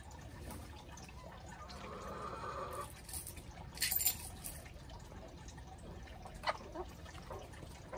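Quiet sounds of a flock of chickens foraging: scattered pecks and rustles in the leaf litter, the loudest a brief scratchy burst about four seconds in and a sharp click about six and a half seconds in.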